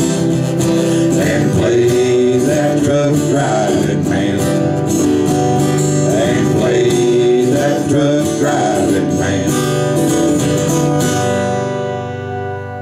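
Two acoustic guitars strumming the end of a country song, then the last chord left ringing about eleven seconds in.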